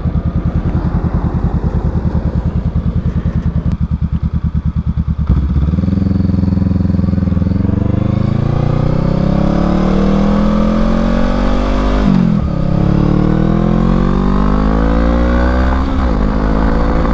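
Honda Rebel motorcycle engine idling with an even pulse, then pulling away about five seconds in and accelerating, its pitch rising until an upshift about twelve seconds in, rising again and shifting once more near the end.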